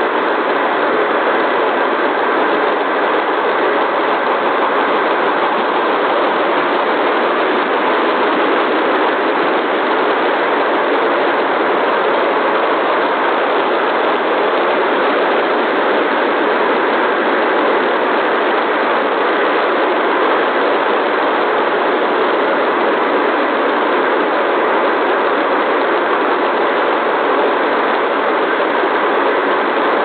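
Steady hiss-like background noise with no distinct events, unchanging in level throughout.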